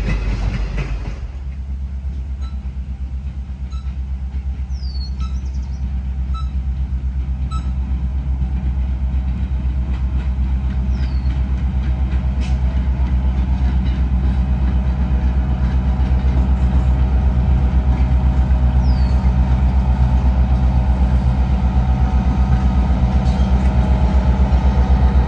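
EMD GP7 diesel locomotive's 16-cylinder 567 engine running with a steady low drone that grows gradually louder as the locomotive approaches. A louder train rumble fills the first second, and faint bird chirps sound in the first several seconds.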